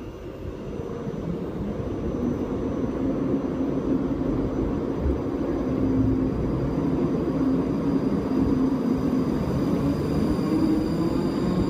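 ScotRail electric multiple unit pulling out of the platform. A steady rumble builds in loudness over the first few seconds, and the motor whine rises in pitch near the end as the train accelerates.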